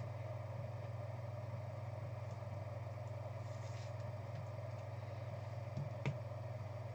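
Steady low electrical or room hum, with a single light click near the end as a card in a hard plastic holder is set down on a stack of cards.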